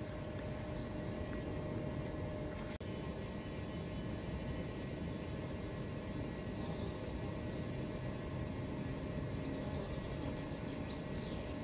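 Steady outdoor background rumble with small birds chirping on and off from about five seconds in, and a single sharp click near three seconds.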